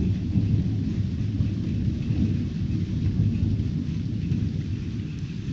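Thunderstorm: a continuous low rumble of thunder with rain falling.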